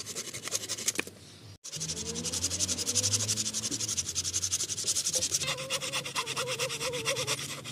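Small hand pruning saw cutting through a wooden branch: quick, even back-and-forth rasping strokes, with a short break about a second and a half in.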